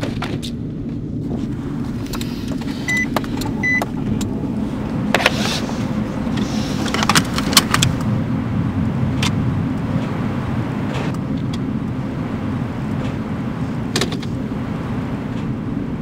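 Sounds inside a car: seatbelts pulled out and clicked into their buckles, keys jangling, and scattered clicks and rustles over a steady low engine hum. There are two short high beeps about three seconds in.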